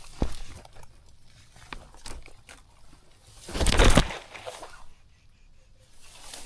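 Footsteps crunching and snapping on dry leaves and twigs, with a louder rustle of brushed vegetation a little past halfway.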